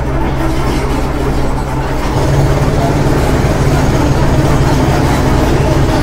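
Heavy construction machinery engine running steadily, low-pitched, growing louder about two seconds in.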